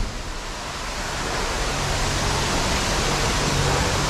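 Steady rushing hiss with a faint low hum underneath: the running noise of a truck wash bay.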